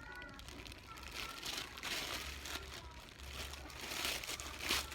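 Packaging and bag being handled, crinkling and rustling in irregular bursts, loudest near the end.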